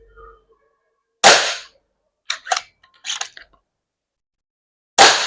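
Snow Peak M60B .22 PCP air rifle firing twice, about four seconds apart: each shot is a sharp crack with a short fading tail. A few quieter clicks fall between the shots.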